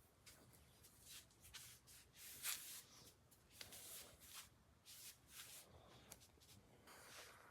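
Faint, irregular rustling and scraping noises: short brushes and rubs, several a second at times, with no voice.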